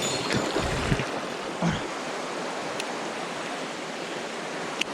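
Mountain stream rushing steadily, with a few low knocks in the first couple of seconds and a sharp click near the end.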